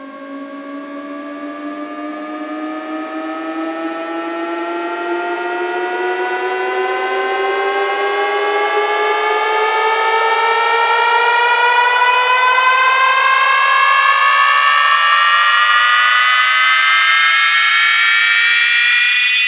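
Electronic siren-like riser from a DJ remix: pitched tones slowly glide upward, building in loudness over the first half and then holding loud.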